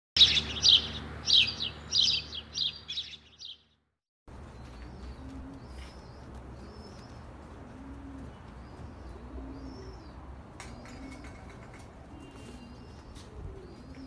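A loud run of high bird chirps over the first three and a half seconds, then a brief silence. After that, Arbash pigeons coo softly in a loft, a low call about once a second, with small birds chirping thinly behind them.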